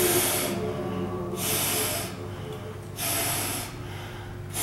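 A man breathing hard through his nose and mouth, with forceful hissing exhalations about a second and a half apart, as he strains through the last repetitions of a set on a weight machine.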